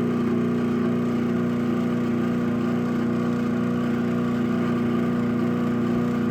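Craftsman 1/2 hp chain-drive garage door opener (model 139.53930DM) running steadily as it raises the door after the keypad code is entered: a loud, even motor hum with the chain drive's whir.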